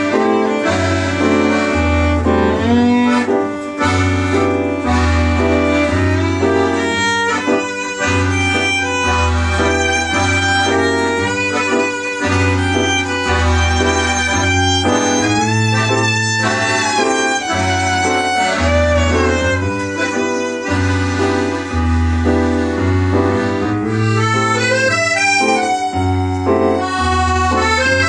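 Instrumental music: a melody over a bass line that changes note about once a second, playing steadily with no voice.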